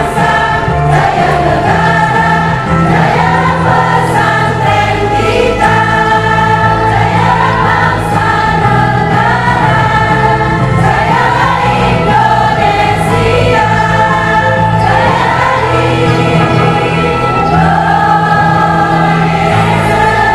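A mixed choir of men and women singing together in long held phrases, with instrumental accompaniment underneath.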